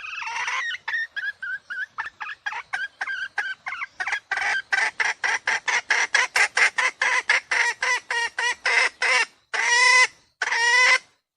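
Junglefowl lure call: a quick run of short clucks, about four to five a second, ending in two longer drawn-out calls.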